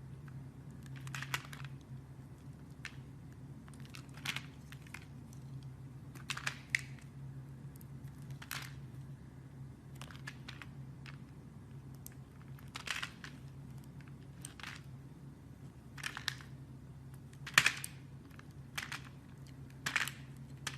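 Blade cutting into a bar of soap: short scraping cutting strokes every second or two, some louder than others, over a steady low hum.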